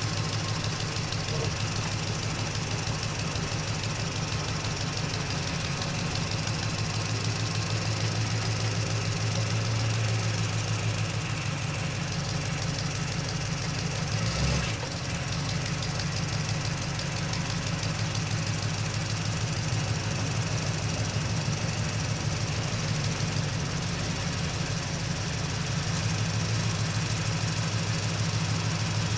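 Truck engine heard from inside the cab while driving slowly, a steady, fairly soft low drone; a single brief thump about halfway through.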